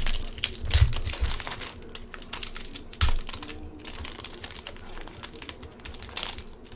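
Foil trading-card pack being torn open and its wrapper crinkling as the cards are slid out: an irregular run of crackles, loudest at the start and again about three seconds in.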